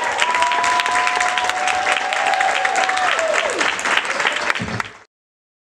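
Audience applauding, which cuts off abruptly about five seconds in.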